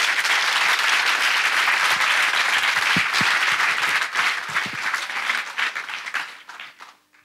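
Audience applauding, steady at first, then thinning out and dying away over the last two seconds or so.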